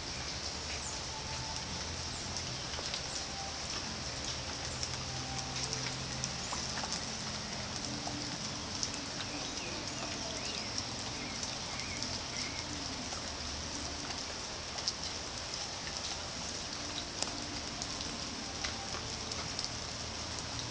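Outdoor nature ambience: a steady hiss with many scattered ticks like dripping water, occasional short bird chirps, and a low steady hum underneath.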